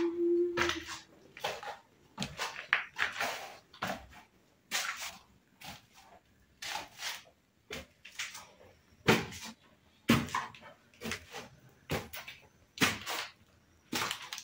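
Footsteps climbing concrete stairs strewn with dry leaves and grit: irregular crunching and scuffing steps, about one or two a second. A short held low hum sounds in the first second.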